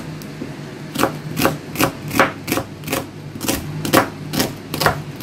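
Chef's knife slicing an onion into half-rings on a plastic cutting board, each stroke ending in a sharp knock of the blade on the board, in a steady rhythm of about two cuts a second.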